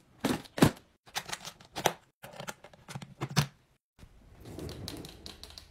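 Handling noise from an aluminium-framed makeup train case: irregular sharp clicks and knocks in short groups, broken off by brief gaps, then a softer rustling shuffle with light ticks near the end.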